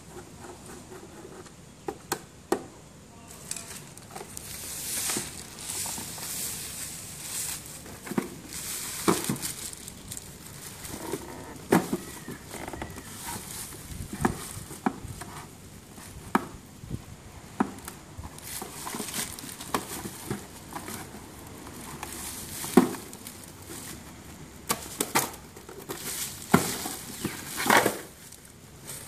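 Clear plastic wrapping crinkling and rustling as it is handled, mixed with scattered sharp clicks and knocks from the plastic housing and loose screws being handled. The rustling starts a few seconds in.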